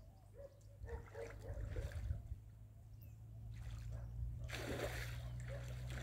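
Small wavelets lapping and splashing gently at the shoreline, growing fuller about four and a half seconds in, over a steady low rumble.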